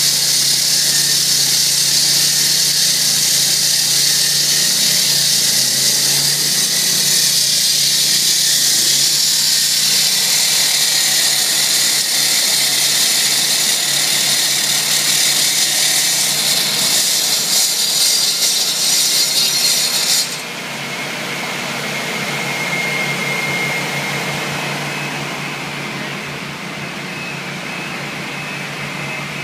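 Multiquip 20 hp self-propelled walk-behind concrete saw running, its 356 mm diamond blade cutting a wet expansion joint in two-day-old green concrete with a loud, steady hissing grind. About two-thirds of the way through the cutting noise stops suddenly, leaving a quieter steady machine sound.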